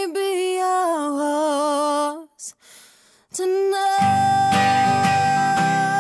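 Pop-rock song: a woman holds a long sung note with vibrato that breaks off about two seconds in. After a short pause a new note starts, and about four seconds in the full band comes in with strummed guitar.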